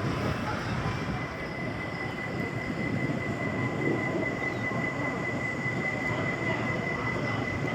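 Roller coaster train running on its track: a steady rumble, with a thin steady high whine coming in about a second in.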